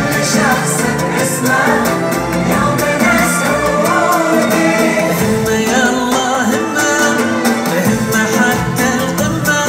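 Music: a song with a singing voice over instruments, playing steadily.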